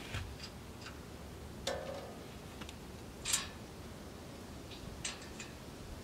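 Light, scattered metal clicks and clinks from a Hud-Son band sawmill's blade and wheel parts being handled during a blade change. One clink just under two seconds in rings briefly, a louder scrape comes just past three seconds, and a few more small clicks follow near the end.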